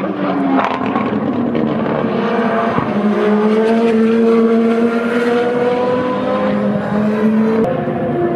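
Super Formula single-seaters' 2.0-litre turbocharged four-cylinder engines running at speed on track. One engine's note rises slowly in pitch for several seconds as the car pulls away, then drops suddenly near the end.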